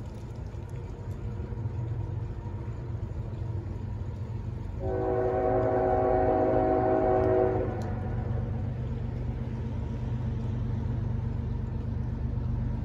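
Horn of a CSX freight train's lead GE ES44AH locomotive sounding one long blast, a chord of several steady tones, starting about five seconds in and lasting about three seconds. A steady low rumble runs underneath.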